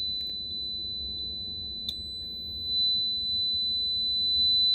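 Piezo speaker salvaged from a carbon monoxide detector, driven by a signal generator, sounding a steady high tone at about 4 kHz. A single click comes a little under two seconds in, and the tone grows louder in the second half.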